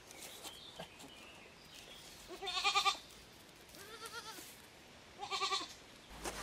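Goats bleating: two loud, wavering bleats about three seconds apart, with a fainter bleat between them.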